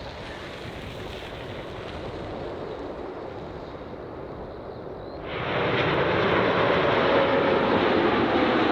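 Jet airliner on short final approach, its engines growing louder as it nears, then jumping sharply louder about five seconds in as it comes close, with a slowly falling whine.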